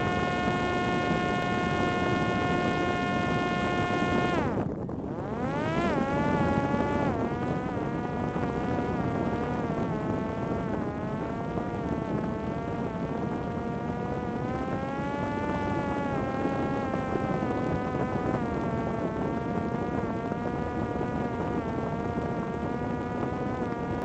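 Parrot Disco fixed-wing drone's electric pusher-propeller motor buzzing, heard from the onboard camera with wind rushing past. About four and a half seconds in, the motor winds down sharply, then spins back up and keeps rising and falling in pitch.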